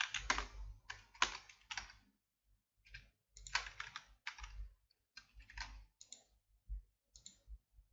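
Computer keyboard typing in short runs of key clicks, with brief pauses between them.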